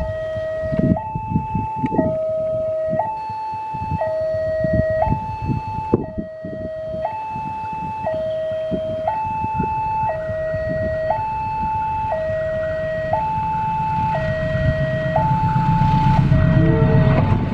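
Railway level-crossing warning alarm sounding its two-tone electronic signal, alternating between a lower and a higher tone about once a second, warning that a train is approaching. The low rumble of the oncoming train grows under it near the end.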